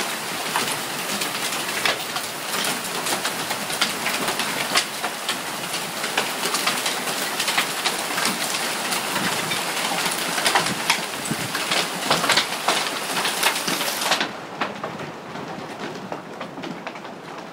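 Hailstorm with heavy rain: a dense, irregular clatter of hailstones hitting the ground and a wooden deck over a steady rush of rain. About fourteen seconds in, it suddenly becomes quieter and duller.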